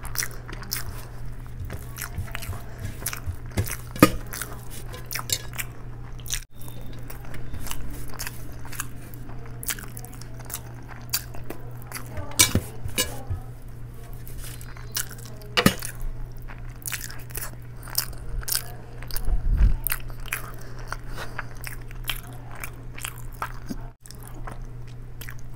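Close-miked eating: a person chewing and biting mouthfuls of rice and curry eaten by hand, with many sharp wet mouth clicks and smacks over a steady low hum. The sound drops out for an instant twice.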